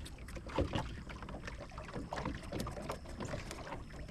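Small waves lapping and slapping against a small fishing boat's hull, with scattered light knocks over a low rumble.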